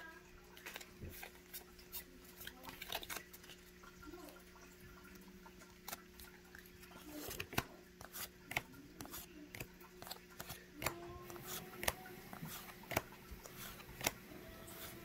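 Pokémon trading cards being flipped through by hand, one card slid off the stack at a time: a run of short, crisp clicks and card-on-card slides.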